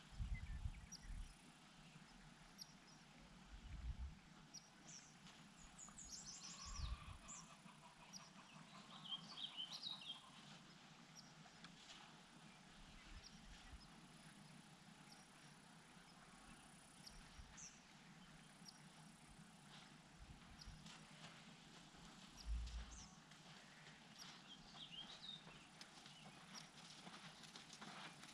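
Near silence: faint bird chirps now and then, with a few low thumps.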